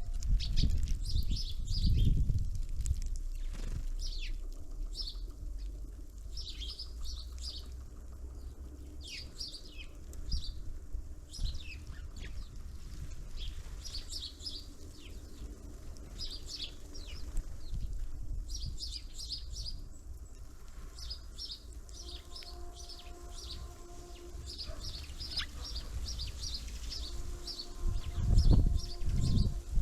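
Small songbirds at a winter feeder calling: many short, high chirps that drop in pitch, coming in quick clusters throughout. Low thumps come at the start and again about two seconds before the end.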